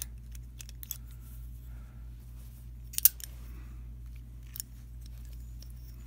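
A few sharp metallic clicks from a brass antique street letter box padlock and its key being handled. The loudest is a quick double click about halfway through, as the shackle is pushed shut.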